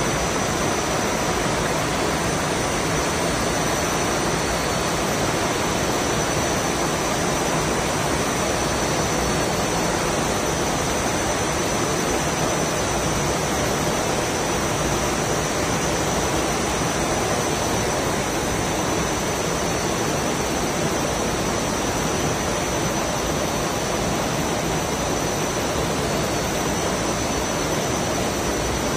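Bottling line machinery and bottle conveyors running: a steady, even machine noise with a thin high tone held throughout.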